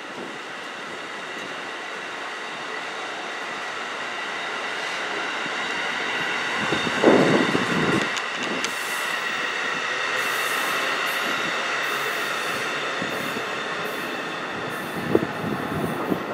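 Amtrak Northeast Regional's Amfleet passenger cars rolling past as the train pulls out, a steady rumble of wheels on rail with high ringing squeal tones over it. It swells to its loudest about seven seconds in, with a brief rush of noise there, then eases slightly as the train draws away.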